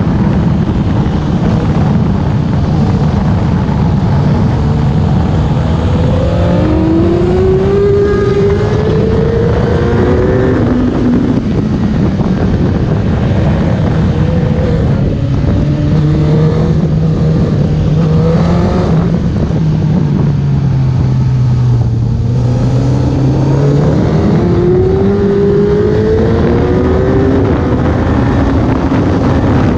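Suzuki sport bike engine running hard, heard from a camera mounted on the bike, under dense wind rush. The engine note climbs in pitch again and again as the bike accelerates, with a steadier, lower-revving stretch a little past the middle.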